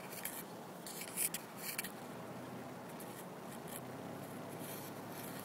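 Steady low rumble of a car driving, heard from inside the cabin, with a few sharp clicks and rustles of camera handling about a second in.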